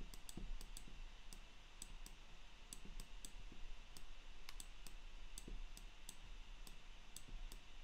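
Faint, irregular clicking of a computer mouse button, a few clicks a second, as strokes of handwriting are drawn with the mouse. A steady low hum runs underneath.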